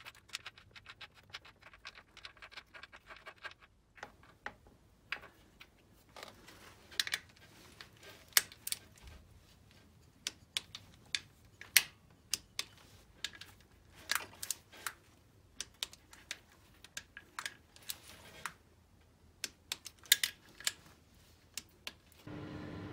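Hand tools and metal engine parts clicking and tapping: a quick run of small clicks over the first few seconds, then scattered, sharper clicks and knocks.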